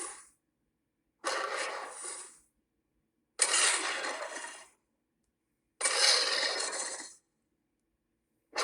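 Varan's roar sound effect: a harsh, rasping monster call repeated three times, each about a second long with a sharp start and a fading end, separated by silence. Another call fades out at the start and a new one begins at the very end.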